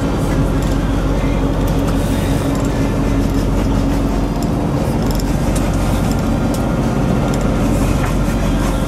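A boat's engine running steadily under way, a low even drone.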